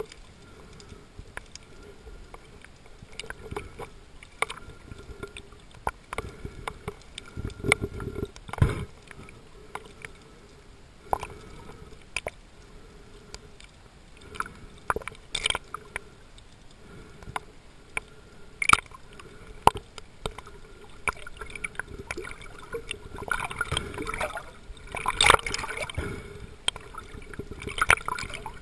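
Underwater sound picked up by a snorkeler's camera: irregular clicks and knocks over a faint water hiss. Louder sloshing and splashing of water builds over the last few seconds.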